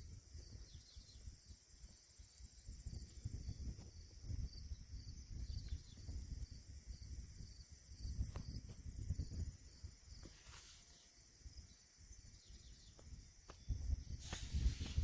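Faint outdoor background noise: an uneven low rumble that swells and fades, over a steady high hiss, with a few light clicks.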